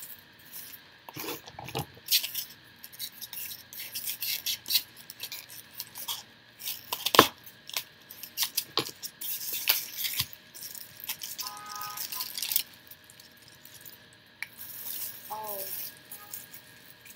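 Small cardboard boxes and packing paper being handled and unwrapped: rustling and crinkling with scattered light clicks and taps.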